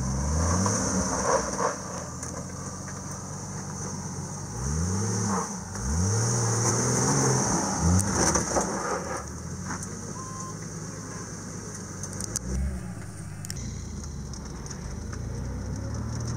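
Jeep Cherokee engine revving up several times in short rising surges as the SUV crawls up a steep dirt slope off-road, over a steady engine drone.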